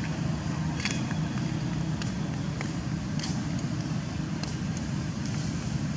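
Steady low rumble of a running motor vehicle, with a few brief, sharp clicks scattered over it.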